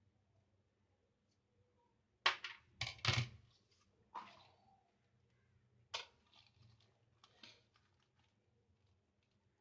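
Hands working on a tabletop with scissors, a small metal nut, string and a plastic bag: a few short clatters and rustles, the loudest cluster about two to three seconds in.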